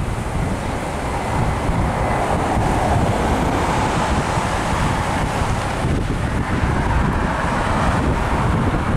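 Gusty wind buffeting the microphone over the steady rush of an Airbus A320-232's IAE V2500 jet engines as the airliner slows on the runway after landing, the engine sound swelling slightly in the middle.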